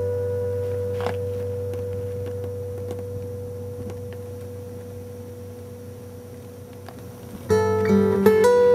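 Acoustic guitar music: a chord rings on and slowly fades, then new plucked notes begin about seven and a half seconds in.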